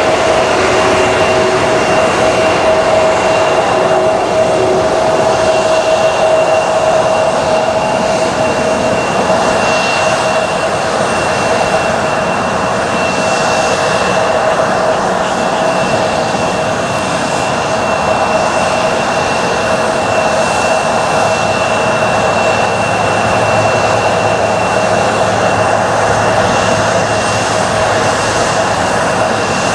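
Boeing 767 airliner's twin jet engines running with a steady whine over a rushing noise as the jet rolls down the runway after landing.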